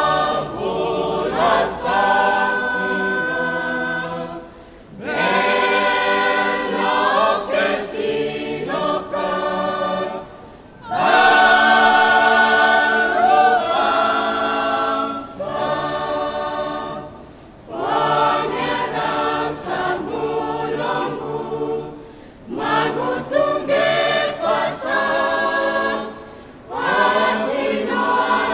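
Mixed church choir singing a hymn a cappella in the Roviana language, in sung phrases of about five seconds with brief breath pauses between them.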